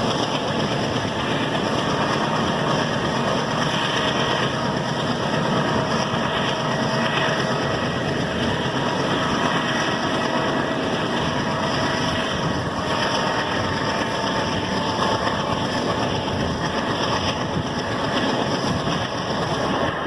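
WDG-3A diesel locomotive's turbocharged ALCO 251 engine running steadily under load, its turbocharger whistle a faint thin tone over the engine and rail noise.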